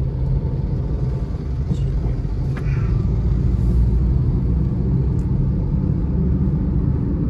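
Car travelling at highway speed, heard from inside the cabin: a steady low rumble of engine and tyre-on-road noise that grows a little louder about two and a half seconds in.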